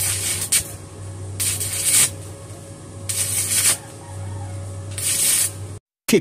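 Electric arc welding on square steel tubing from a small inverter welder: four short bursts of crackling hiss, each about half a second long, as tack welds are struck on the joints, over a steady low hum.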